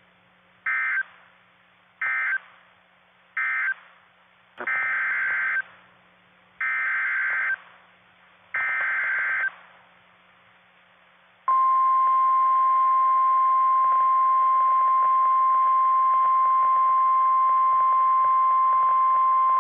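NOAA Weather Radio alert signals: three short digital data bursts (the SAME end-of-message code), then three longer data bursts (the SAME header of the next alert). About halfway through, a loud, steady single-pitched warning alarm tone begins.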